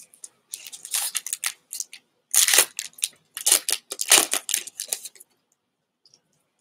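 Foil wrapper of a Pokémon trading-card booster pack being torn open and crinkled: a series of crackling rips from about half a second in until about five seconds in, loudest around the middle and again a little later.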